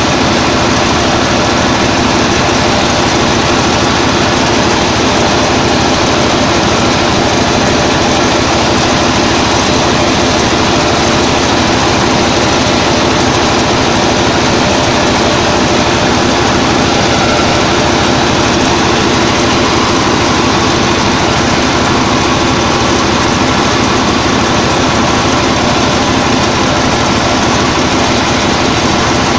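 Combine harvester's engine running steadily under load as it cuts rice, a loud, unchanging mechanical drone.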